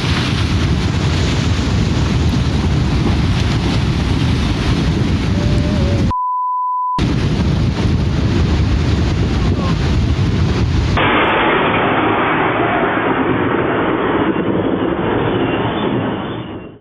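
Loud, steady rushing roar, interrupted about six seconds in by a censor bleep: a single pure beep lasting about a second, with the other sound cut out beneath it. The roar then returns, and about eleven seconds in it switches to a duller, muffled recording.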